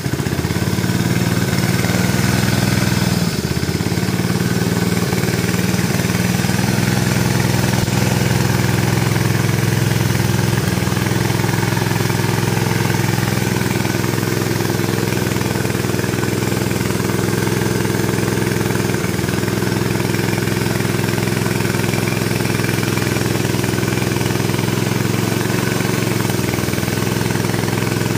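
Honda GX160 single-cylinder engine running steadily on propane through a conversion carburetor, driving a portable twin-tank air compressor. The owner believes this engine needs a valve job and has weak valve springs.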